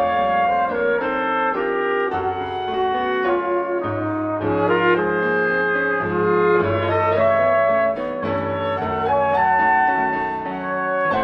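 Instrumental music accompaniment for a silent film: a melody over a moving bass line, with notes changing about every second.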